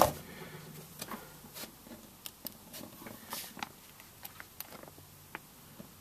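Handling noise from multimeter test leads held on a capacitor's terminals: a sharp click at the very start, then scattered light ticks and rustles.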